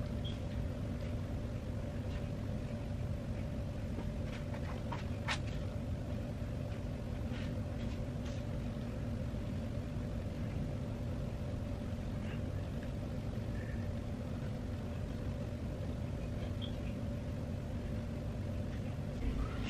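Room tone: a steady low hum with a faint constant tone, and a few soft clicks, the clearest about five seconds in.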